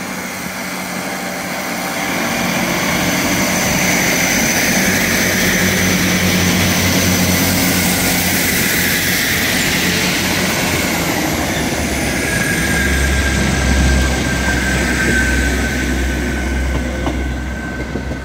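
A two-unit East Midlands Railway Class 158 diesel multiple unit pulling away under power and running past close by, its diesel engines droning with a deep low hum. The sound builds over the first couple of seconds and eases near the end as the train draws away.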